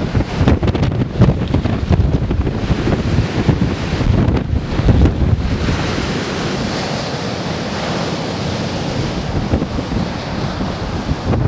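Gale-force wind buffeting the microphone in heavy, uneven gusts over the rush of breaking waves; the buffeting eases after about five seconds, leaving a steadier wash of surf and wind.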